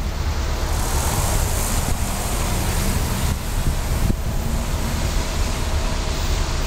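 Steady wind noise buffeting the microphone over the low rumble of a diesel freight train still far off and approaching.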